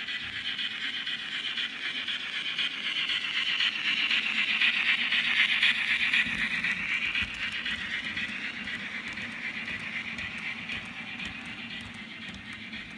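H0 scale model train hauling brown wooden-bodied passenger coaches, running past on the track: a steady rolling hum and clatter of wheels on rails that grows louder as the coaches pass near the middle and then slowly fades.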